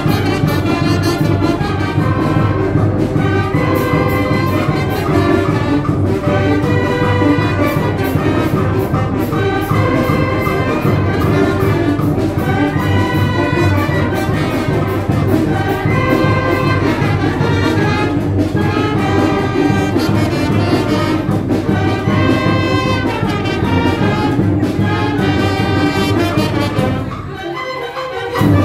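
Village wind band (banda filarmónica) playing a brass-led tune over a steady low bass. The music drops off briefly near the end, then comes back in.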